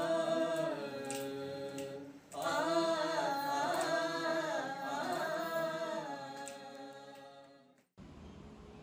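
Singing in Carnatic classical style: two long phrases of held, wavering notes with a short break between them, the second fading away and cutting off abruptly near the end.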